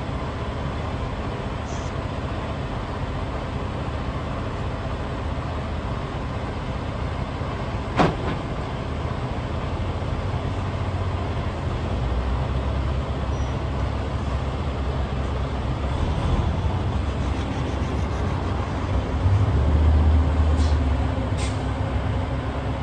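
Semi-truck's diesel engine idling steadily, with one sharp click about eight seconds in. The low rumble grows louder for a couple of seconds near the end.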